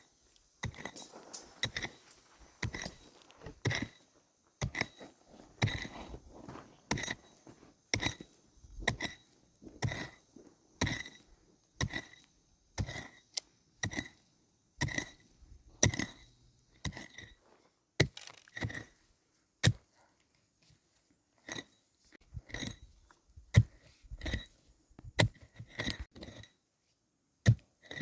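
Hammer driving nails into wooden planks, striking about once a second with a short metallic ring on each blow, with a brief pause about two thirds of the way through.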